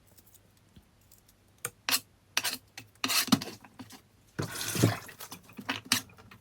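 Kitchen knife cutting garlic on a cutting board: irregular sharp knocks of the blade on the board, with a longer scraping sound about four and a half seconds in.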